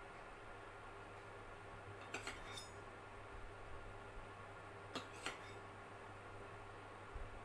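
Metal spoon clinking against cookware as oil is drizzled over a pesarattu in the pan. There are a few light clinks about two seconds in and two more around five seconds, over a faint steady hum.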